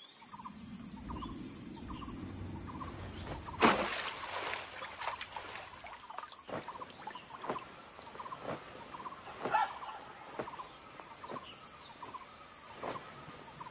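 Wild ambience of short animal calls repeating about once a second, with a low rumble through the first four seconds and a brief loud rushing burst about four seconds in.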